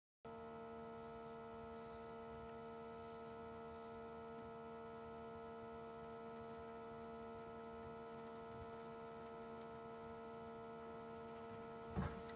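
Mercedes ML engine idling with the power steering pump running during a fluid flush: a steady hum of several fixed tones. It comes in just after the start, and a couple of short knocks sound near the end.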